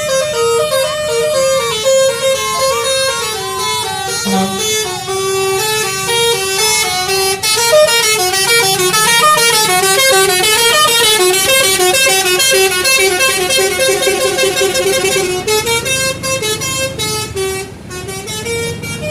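A bus's telolet basuri horn, a multi-tone musical horn, playing a tune of stepping notes. It speeds into a fast warbling trill in the middle, slows again and dies away near the end.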